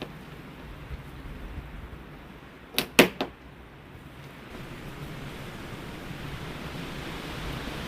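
Three quick sharp plastic clicks about three seconds in, the middle one loudest, as small push pins are pried out of the hood deflector's mounting tabs. Wind noise on the microphone throughout, rising a little in the second half.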